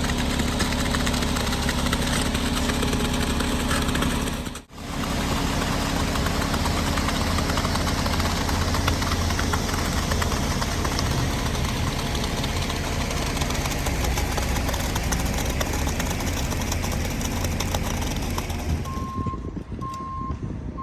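Engine of a construction machine running steadily, with a short dropout about four and a half seconds in. Near the end the engine noise eases and a backup alarm starts beeping at an even pace.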